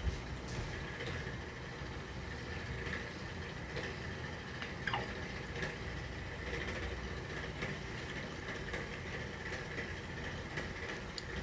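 Steady background hum and hiss, with scattered faint clicks and taps and one short squeak about five seconds in.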